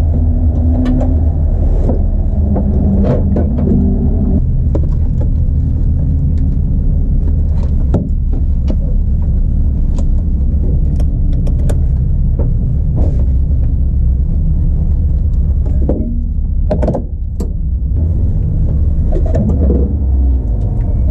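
A steady low rumble inside a race car's cabin, with scattered sharp clicks and knocks as the driver pulls on his helmet and gloves and settles into the harness.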